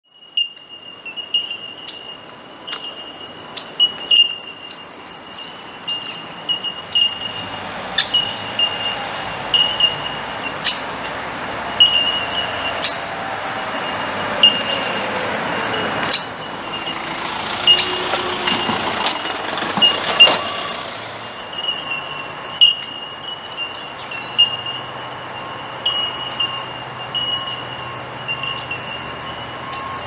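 Outdoor ambience: a high, steady chirping pulses throughout, with sharp clicks scattered through it. A vehicle passes by, loudest about 17 to 21 seconds in.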